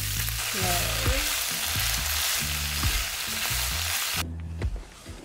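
Wood ear mushrooms and cabbage sizzling in a nonstick frying pan as they are stir-fried with a wooden spatula, with clicks of the spatula against the pan. The sizzling cuts off abruptly about four seconds in.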